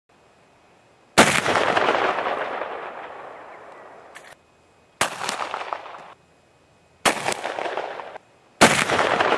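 Marlin 1895 Guide Gun lever-action rifle firing four .45-70 shots: the first about a second in, then three more at roughly two-second intervals toward the end. Each is a sharp crack followed by a long, slowly fading echo, and each echo is cut off abruptly where the shots are spliced together.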